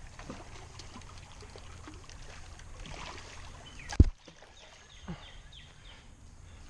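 Water sloshing and trickling as a large carp is landed by hand in the shallows, with small handling knocks and one sharp, loud knock about four seconds in.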